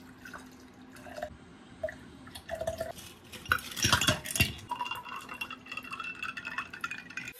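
Whisky poured from a bottle into a glass mug. About three and a half seconds in, ice cubes clatter into the glass, the loudest part. Then soda water is poured over the ice in a steady stream until the end.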